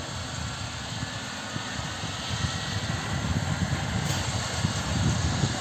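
Helicopter running on the ground: a steady turbine hiss over a rough low rumble that grows louder toward the end.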